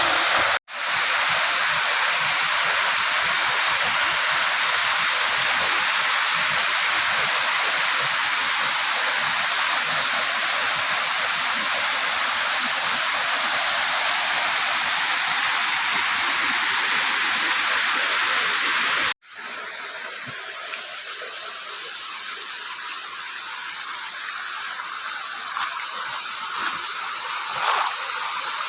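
Waterfall rushing, a steady loud hiss of falling water. It breaks off abruptly twice, and after the second break, about two-thirds through, the water is quieter, with a few faint knocks near the end.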